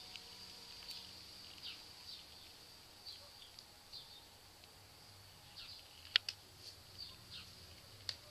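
Newborn kittens squeaking: many short, high-pitched mews that fall in pitch, coming every half second or so, with a sharp click about six seconds in.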